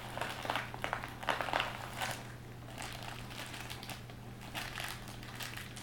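Crinkling and crackling of a small plastic packet handled in the fingers, irregular clicks that are busiest in the first two seconds and then thin out.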